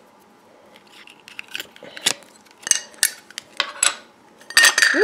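Small metal putty tins and their lids clinking and tapping as they are handled: a string of sharp, irregular clicks, with a louder cluster of clinks near the end.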